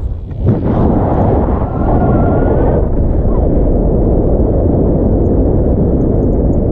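Airflow buffeting an action camera's microphone in paraglider flight: a loud, steady rush of wind noise, briefly dropping away just after the start before coming back.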